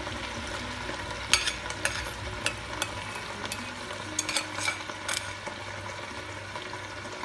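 Prawns and broccoli sizzling in a frying pan, with a metal ladle clinking several times against a ceramic bowl.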